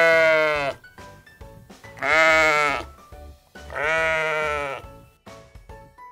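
Sheep bleating three times, each call under a second long, over quiet background music.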